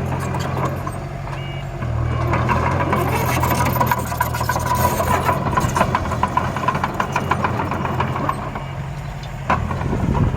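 Miniature construction-vehicle engines running steadily with a low hum. A dense mechanical rattle and clatter joins in about two seconds in and fades after about six seconds.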